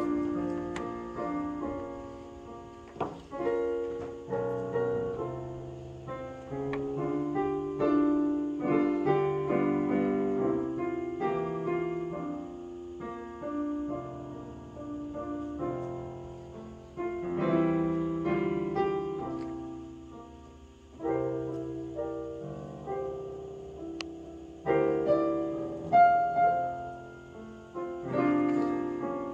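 Solo piano playing a slow piece of held chords under a melody, its phrases swelling and fading.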